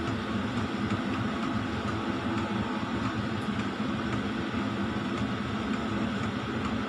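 Noisy washing machine running with a steady mechanical hum and rumble.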